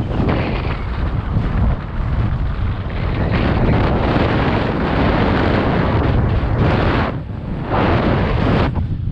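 Strong wind buffeting the microphone in a loud, rumbling rush that swells and eases, with short lulls about seven seconds in and near the end.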